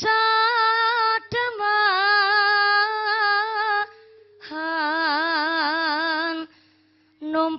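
A woman singing a Javanese religious song solo into a microphone, unaccompanied. She sings in long held notes with a wavering vibrato, in three phrases with short breaks between them.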